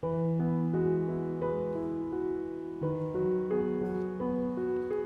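Background music that starts suddenly: a melody of short, evenly paced notes over held low notes.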